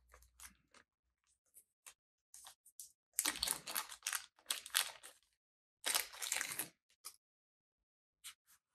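Small clear plastic bag crinkling in the hands as small heatsinks are handled and taken out of it, in two rustling stretches of a second or two each, with a few light clicks and taps between.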